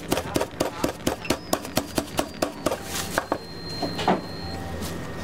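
Metal meat mallet pounding a raw cutlet flat under plastic film on a wooden cutting board, in a quick steady rhythm of about five blows a second that stops about two and a half seconds in. Then come softer handling sounds and one louder knock about four seconds in.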